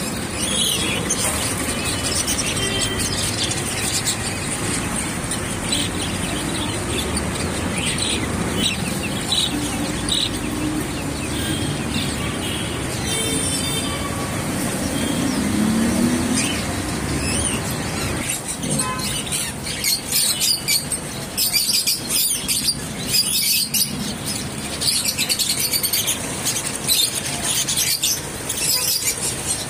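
Caged budgerigars chirping and chattering, sparse at first and then a dense flock chatter about two-thirds of the way through. Under the first part runs a steady low rumble that then drops away.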